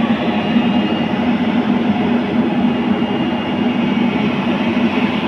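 Tata Hitachi EX210LC crawler excavator's diesel engine running steadily under load as the machine crawls forward onto a lowbed trailer, with its steel tracks clattering.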